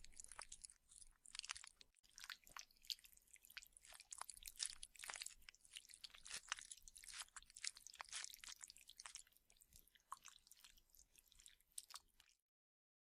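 Close-up wet chewing, biting and crackly squelching, performed as a zombie flesh-eating sound effect. The dense, irregular clicks thin out toward the end, then the sound cuts off suddenly.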